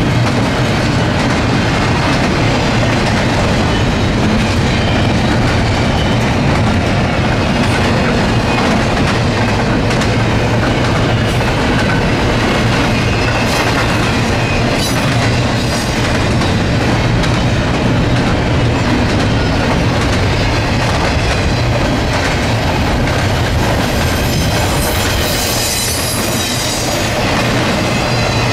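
Norfolk Southern freight train's cars rolling past, a loud steady rumble with the wheels clicking over rail joints and some high-pitched wheel squeal near the end.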